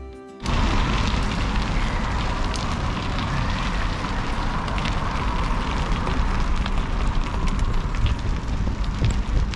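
Music cuts off about half a second in, giving way to loud wind buffeting on a bike-mounted action camera's microphone and bicycle tyres rolling over a gravel lane, with scattered crackles from the grit.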